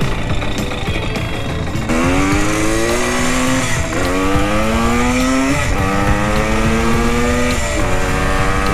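Vintage Yamaha two-stroke enduro motorcycle accelerating through the gears: the engine note climbs in pitch, drops back at each of about three upshifts, and climbs again.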